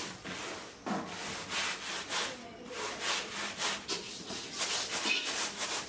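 Dry rice grains rustling and scraping as a hand sweeps them back and forth across a woven bamboo tray, in quick repeated strokes of about two to three a second.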